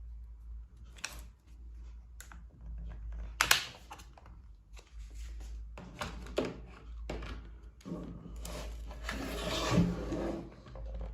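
Plastic clicks and rattling as a laptop's removable battery is unlatched and pulled out. The sharpest click comes about three and a half seconds in, and a longer scraping rattle follows near the end.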